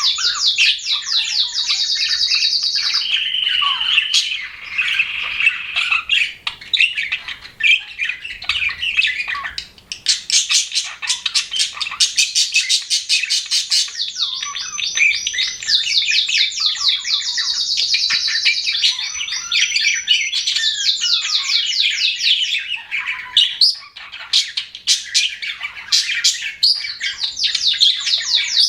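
Budgerigars chirping and warbling. Runs of fast, evenly repeated high chirps lasting a few seconds each alternate with lower, squawky chatter.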